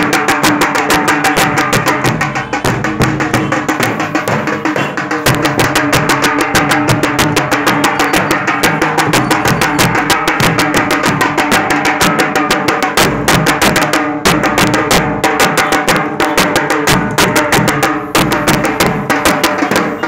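A procession drum band playing: fast, steady drumming with sticks on a steel-shelled drum, many strokes a second, over a few steady held tones.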